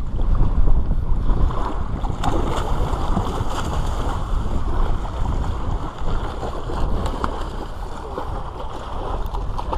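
Steady rumbling wind noise on the microphone over water, with a few faint clicks.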